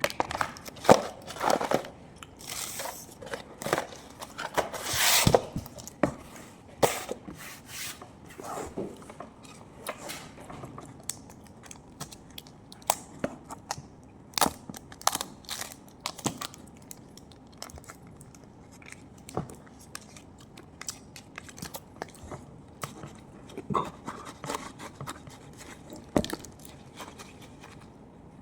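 Eating sounds: irregular crunching bites and chewing, loudest and densest in the first several seconds.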